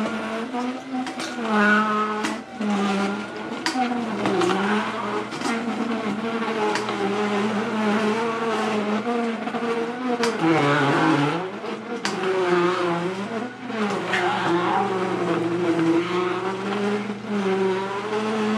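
Comfee masticating juicer's motor running while its auger crushes a large beet. The pitch of the whine rises and sags as the load changes, dipping lowest about halfway through, over frequent sharp cracks and crunches from the beet being ground.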